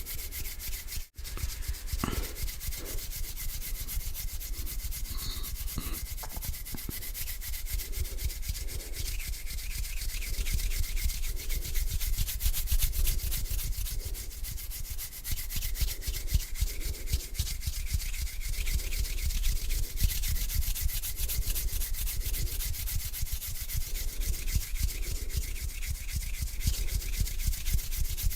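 Bare hands rubbing together slowly, skin on skin, in a steady back-and-forth with strokes about once a second. There is a momentary break about a second in.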